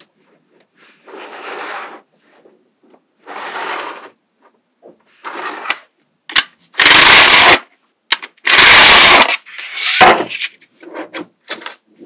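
Small magnetic balls rattling and scraping against each other as they are handled and snapped together. They come in short bursts with sharp clicks between, and the two loudest, longer bursts come past the middle.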